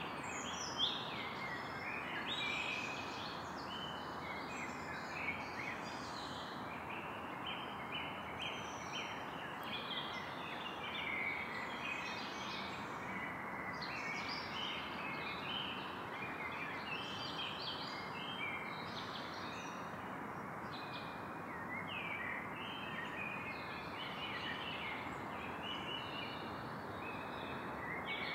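Evening forest ambience: a chorus of many birds chirping and calling at once over a steady background hiss, with one brief louder sound about a second in.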